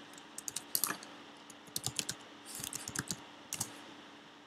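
Computer keyboard typing in a few short, irregular runs of key clicks.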